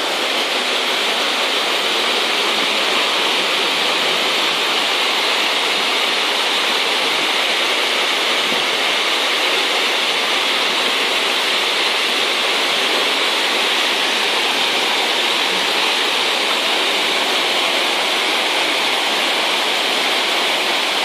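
Water rushing over a small cascade in a canal: a steady, even hiss that does not let up.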